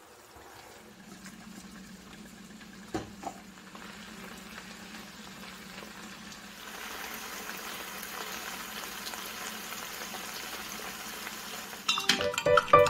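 Tagliatelle and sauce sizzling in a non-stick pot as they are stirred with a wooden spatula, over a low steady hum, with two knocks about three seconds in; the sizzle grows louder about halfway through. Gentle piano music comes in near the end.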